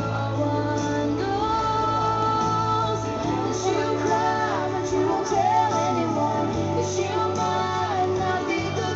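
Music: a woman singing a song over instrumental accompaniment with a steady low bass note.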